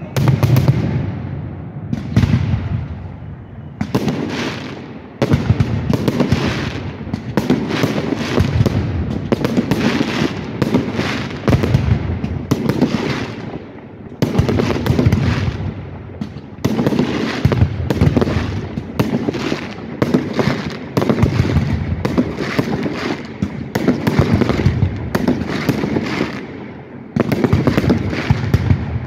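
Aerial fireworks display: shells bursting in rapid, overlapping bangs that barely let up, with brief lulls about halfway through and near the end.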